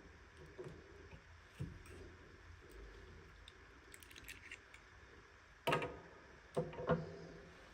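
Hands handling a miniature toy and its plastic packaging: soft rustling and small clicks, with three sharper plastic clacks near the end.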